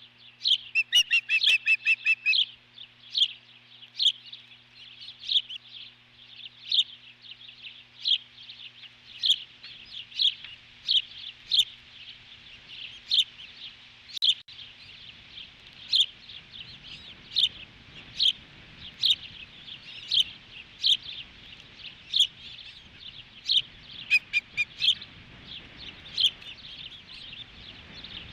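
Osprey giving a long series of short, high, piercing chirps, about one a second, with a quicker burst of calls near the start and again near the end. Wind rumbles on the microphone from about a third of the way in.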